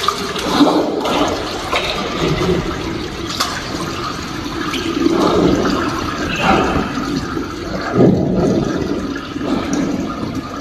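Water rushing and splashing in uneven surges, as in a panda being showered with water.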